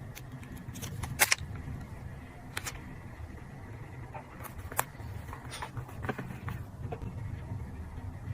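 Paper and stationery handling during journal collage: scattered light taps and crinkles, the loudest about a second in, over a steady low hum.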